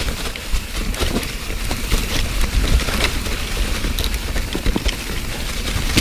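Mountain bike riding fast downhill over a trail covered in wet leaves and rocks: tyres rolling through the leaves, with constant clattering and rattling from the bike, over a steady wind rumble on the microphone.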